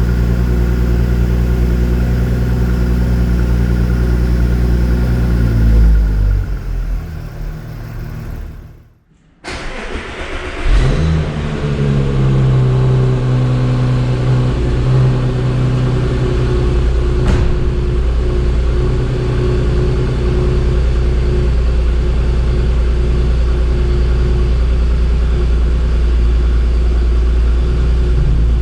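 Porsche Cayenne 957's 3.6-litre VR6 engine on the stock exhaust idling steadily, then switched off and winding down to a stop. About half a second later it is restarted: it cranks, catches with a brief flare, and settles back into a steady idle. A single short click comes partway through the idle.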